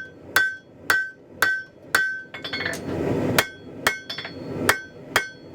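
Hand hammer striking hot mild steel over the anvil horn, drawing out a taper. The blows come about twice a second, each with a short ring, and a quick run of light taps comes about halfway through.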